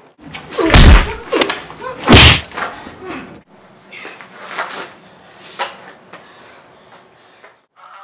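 Two loud, deep bangs about a second and a half apart, followed by a few fainter knocks.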